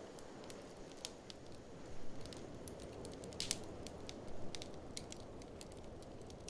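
Wood fire crackling in an open fireplace: irregular sharp pops and snaps throughout, with a loud cluster about three and a half seconds in, over a steady low rumble.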